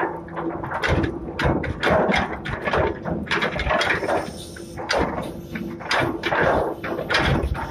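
Ship's anchor chain clanking irregularly as it is heaved in, over a faint steady mechanical hum.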